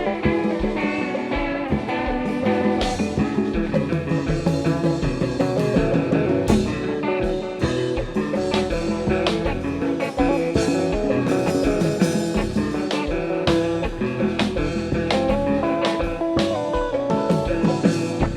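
Haitian kompa band playing an instrumental passage: guitars over a steady drum-kit beat.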